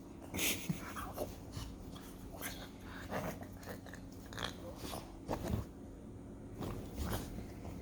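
A dog making short, irregular mouth and breathing noises, like chewing, in separate bursts every second or so.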